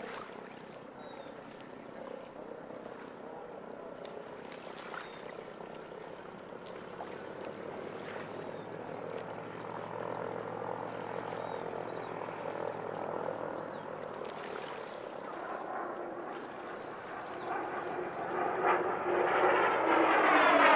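PBY Catalina's twin Pratt & Whitney R-1830 radial engines running at low power as the flying boat moves on the water, with a steady hum. Near the end they are throttled up, getting much louder and rising in pitch.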